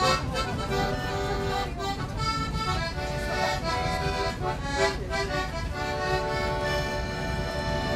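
Button accordion playing a tune, a melody of quickly changing notes over chords, ending on a long held chord.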